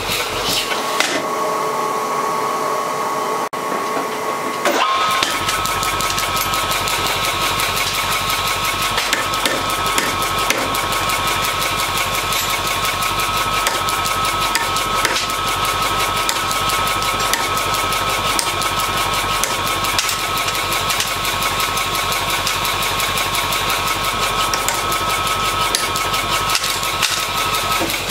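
A mechanical power hammer strikes red-hot steel in a leaf-vein die in a rapid, steady run of blows over the machine's constant whine. The blows become heavier from about five seconds in.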